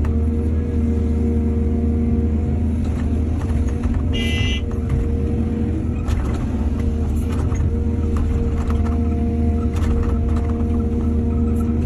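Excavator diesel engine running steadily with a deep rumble, with scattered knocks and a brief high-pitched tone about four seconds in.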